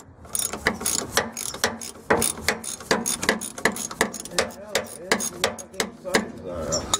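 Hand ratchet wrench clicking in repeated strokes as bolts are worked loose on a car.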